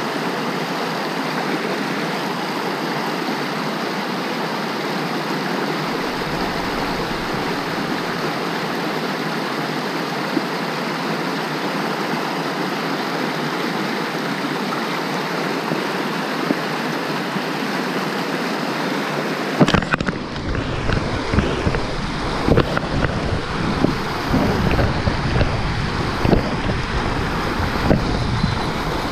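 Mountain stream rushing over boulders in small rapids, a steady noise of running water. About twenty seconds in, irregular low rumbling and knocks close to the microphone join it.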